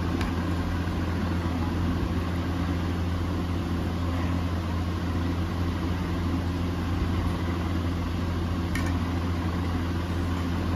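Steady low machine hum with an even hiss, unchanging throughout; a faint click near the end.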